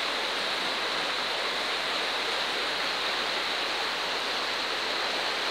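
Fast-flowing river swollen by rain, a steady rush of turbulent water.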